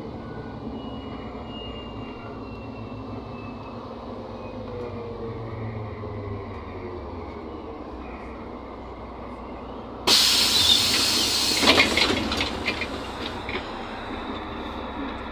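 Interior running noise of a NefAZ 5299 city bus with a Cummins ISBe diesel and Voith automatic gearbox, driving along: a steady rumble with a faint whine that slides in pitch. About ten seconds in, a sudden loud hiss breaks in and dies away over a few seconds.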